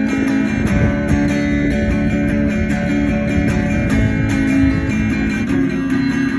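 Guitar strummed in an instrumental break between sung lines, steady chords with no voice.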